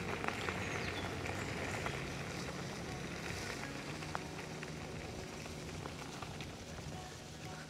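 Electric scooter's off-road tyres running over a wet dirt trail: a steady crackling hiss of wet ground under the wheels, with scattered small clicks and rattles.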